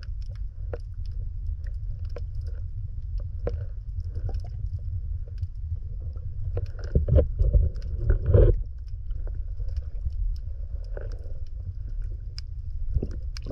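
Underwater sound from a submerged camera: a steady low muffled rumble of water with scattered clicks and pops, and two louder swells about seven and eight and a half seconds in.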